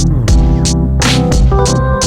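Music with a steady beat of about three hits a second, over held keyboard chords and a strong bass line.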